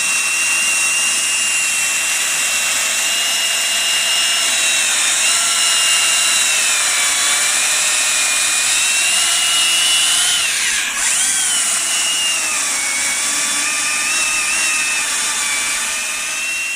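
Stihl MSA 300 cordless battery chainsaw running and cutting into oak, a steady high electric whine. The pitch sags as the chain loads up in the wood and recovers, with one sharp dip and rise a little past the middle.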